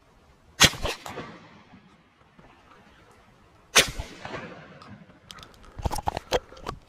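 Shotgun fired twice, about three seconds apart, each loud shot trailing off in a short echo. Near the end comes a quick run of small knocks and rustles.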